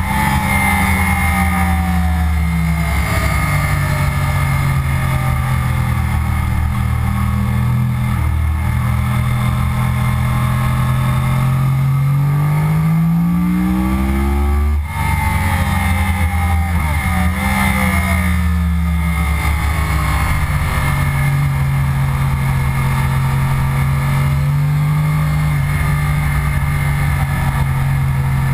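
2009 Yamaha R1's crossplane inline-four running hard on track, heard from the rider's seat under a rush of wind. The engine note rises and falls with speed, climbs steeply about twelve seconds in and breaks off sharply about fifteen seconds in, then settles lower.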